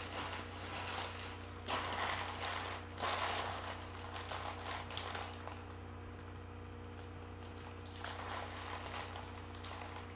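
Wrapping paper being crumpled and handled, in irregular rustles for about five seconds, then quieter with a few soft rustles near the end.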